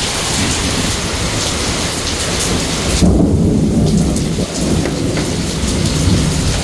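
Heavy rain pouring steadily onto a paved courtyard, with a sudden loud low rumble about three seconds in that fades over the next second or two.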